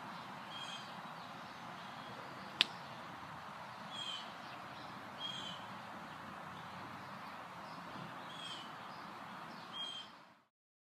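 Steady outdoor background hiss with a bird giving a short, downward-sliding chirp five times, and a single sharp click a little before the second chirp. The sound cuts off shortly before the end.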